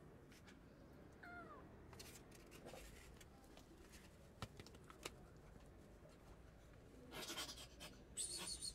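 A cat gives one short meow, falling in pitch, about a second in. Later come a few sharp clicks and, near the end, wet scraping as canned cat food is tipped from a metal tin into a foam tray.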